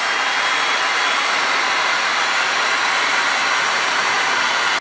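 Heat gun blowing hot air, a loud steady rush from its fan with a faint whine over it, switched off suddenly at the end.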